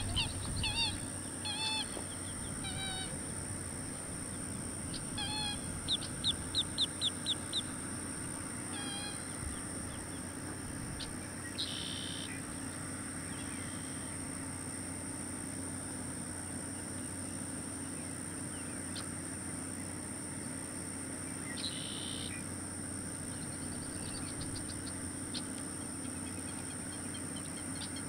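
American alligator hatchlings chirping: short, high repeated calls, clustered in the first several seconds with a quick run of about six together. A few single chirps follow further on, over a steady high-pitched drone.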